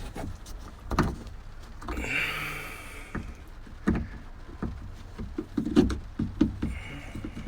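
Scattered clicks and knocks of a tool working a stuck plastic trim fastener in a car's rear interior, with a brief scraping rustle about two seconds in.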